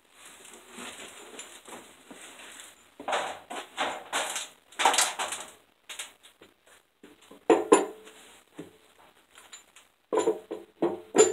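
Cast-iron cylinder head of a Dodge 318/360 V8 being handled and set onto the engine block over a new head gasket. Shuffling and scraping give way to sharp metallic clunks and knocks with a short ring, the loudest about two-thirds of the way through and again near the end, as the head is seated on the deck.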